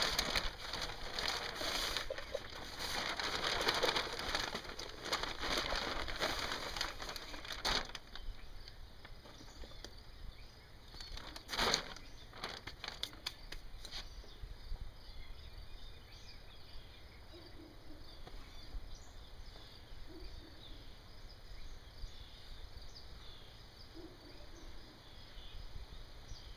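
Rustling, crackling noise for the first several seconds and a short burst of it about twelve seconds in, then faint high bird chirps over a quiet outdoor background.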